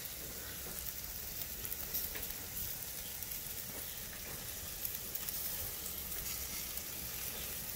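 Steaks sizzling on a charcoal grill: a steady hiss with scattered small crackles.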